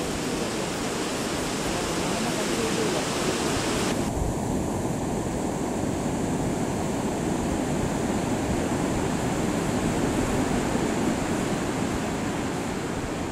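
Water rushing steadily over a river weir. About four seconds in, the higher hiss cuts off abruptly, leaving a duller, lower rush of water.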